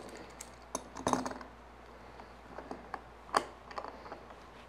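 A small metal bar clamp being picked up from among other tools and fitted onto a bundle of wooden strips: a series of sharp clicks and metal-on-wood clatters, loudest about a second in and again a little past three seconds.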